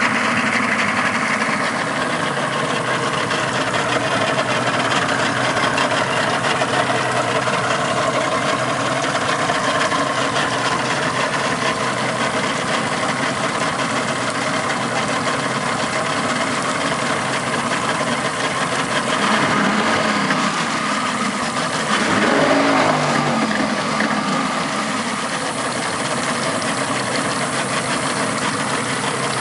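Yamaha V6 150 Saltwater Series II two-stroke outboard idling steadily just after starting, with a brief wavering in pitch and a slight rise in level a little after twenty seconds in.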